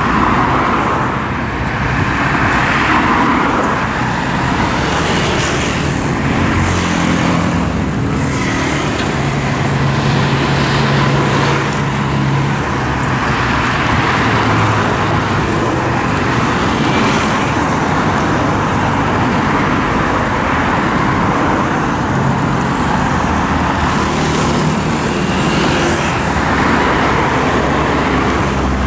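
Steady highway traffic: a continuous stream of cars and small motorcycles passing, tyre noise under engine notes that come and go and rise and fall as each vehicle goes by.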